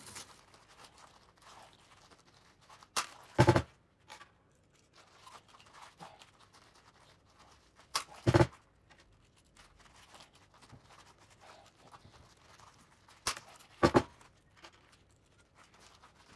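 Trojan hand riveter setting pop rivets three times, about five seconds apart: each squeeze of the handles gives a light click, then about half a second later a loud sharp snap as the rivet's mandrel breaks. Faint handling rattle between the squeezes.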